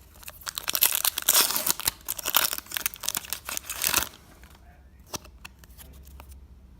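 Foil Pokémon booster pack wrapper crinkling and being torn open for about three and a half seconds, then a few faint clicks and rustles.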